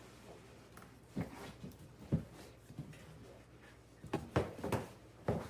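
A cardboard box and its packaging being handled while it is opened: a few scattered soft knocks and rustles.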